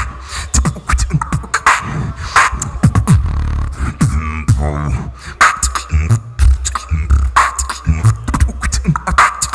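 Solo beatboxing, amplified through a handheld microphone and PA: rapid sharp kick- and snare-like hits over a deep, continuous bass, with pitched bass notes that slide downward several times.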